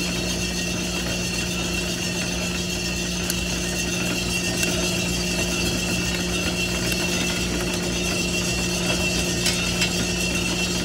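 Drum sample coffee roaster running with a steady mechanical hum, its beans at the very start of first crack, with a few faint, scattered cracks. A metal sample trier is slid into the drum and drawn out loaded with beans.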